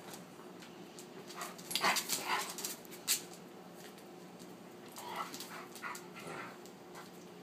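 A wolf hybrid and an Alaskan Malamute playing, giving short bursts of play noises in two spells, about two seconds in and again about five to six seconds in, with one sharp click between them. A faint steady hum lies underneath.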